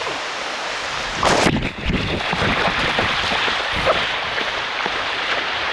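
Swift river water rushing over rocks, a steady hiss. About a second and a half in there is a loud brief burst of noise, followed by uneven low buffeting.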